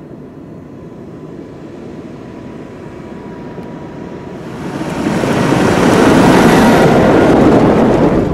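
Fendt 724 tractor towing a Ravizza slurry tanker while spreading liquid digestate, heard approaching. The engine and spreader grow steadily louder, then swell about halfway through into a loud, even rush of engine, tyres on gravel and spray as the rig passes close by.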